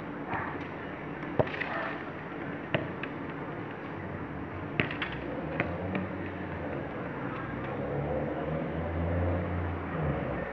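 A football being juggled on the feet: a few sharp, irregularly spaced taps of the ball against the shoe over a steady background noise, with a low rumble swelling near the end.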